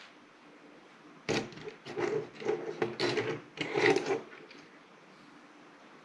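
Hard plastic parts of a Hardhead Transformers figure clicking and clattering as it is twisted and handled, a run of clicks and small knocks starting about a second in and lasting about three seconds.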